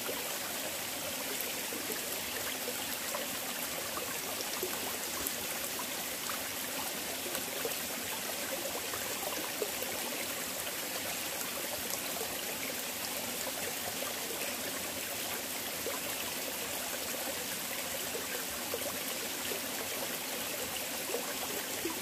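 Mountain valley stream running steadily over rocks, a continuous even rush of water.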